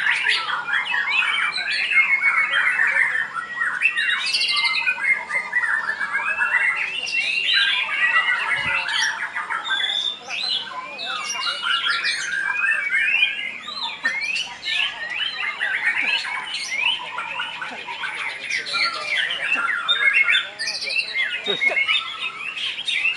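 Many caged white-rumped shamas singing at once: a dense, overlapping, unbroken mix of fast whistles, trills and chirps.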